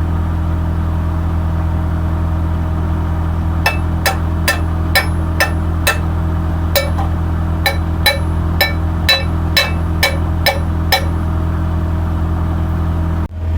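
Skid steer engine running steadily, with a run of sharp metallic knocks about two a second for some seven seconds as the slipped pallet fork is put back on its carriage.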